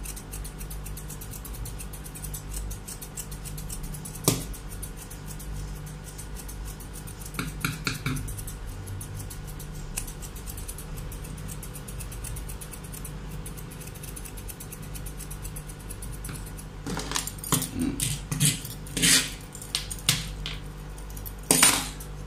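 Thinning scissors snipping through a Pomeranian's leg fur: a few sharp metal clicks over a steady low hum, with the snips coming more often and louder in the last few seconds.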